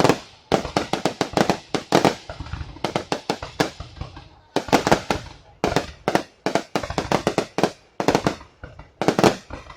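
Aerial fireworks going off in rapid volleys of sharp bangs and crackles, broken by short pauses between salvos.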